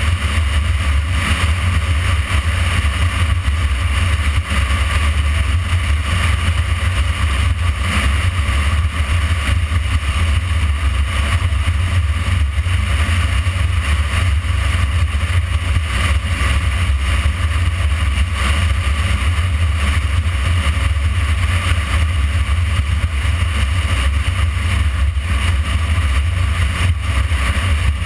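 Motorcycle riding at steady speed: a loud, unbroken rush of wind on the bike-mounted microphone with the engine running underneath, deep rumble and no changes in pace.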